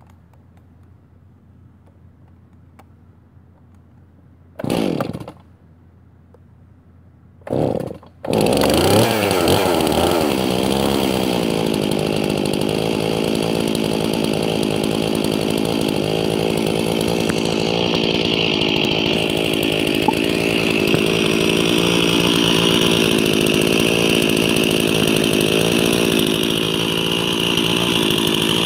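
Stihl MS 261 two-stroke chainsaw cold-started by its pull cord after months of sitting: the engine pops briefly and dies, then about three seconds later fires again and keeps running. Its speed wavers for a couple of seconds, then it settles into a steady idle.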